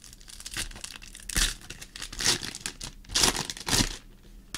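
Foil wrapper of a trading-card pack being torn open and crinkled by hand, in about four loud crackling spurts with quieter crinkling between.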